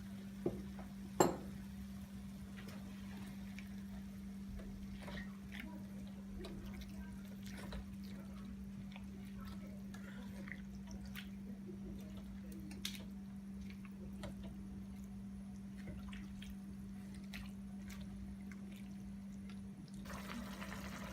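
Faint kitchen sounds: scattered light clicks and taps of cooking over a steady low hum, with a sharp knock about a second in.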